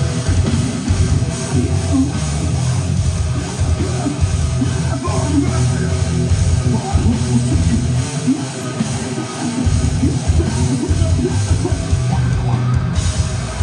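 Live heavy rock band playing loudly: distorted electric guitar, bass guitar and drum kit.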